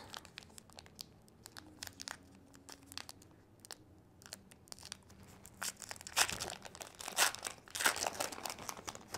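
Baseball card pack wrapper being crinkled and torn open by hand: scattered light crackles at first, then louder tearing and crinkling from about halfway on.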